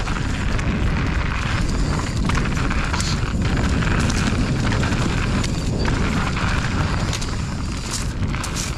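Mountain bike riding down a rough dirt trail: heavy wind rumble on the microphone, with tyre noise and scattered sharp rattles and clicks from the bike over rocks and roots.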